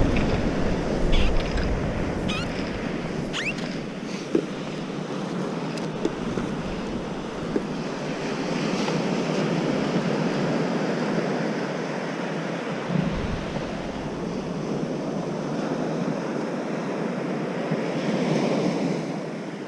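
Ocean surf washing onto a beach, swelling and easing in slow waves, with wind noise on the microphone.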